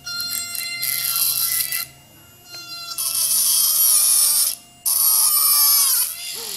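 Repaired micro brushed DC motor from an RC helicopter spinning with a thin, steady whine under a load test, while a strip of styrofoam pressed against its shaft gives three bursts of loud, scratchy grinding. Near the end the whine drops sharply in pitch as the motor slows.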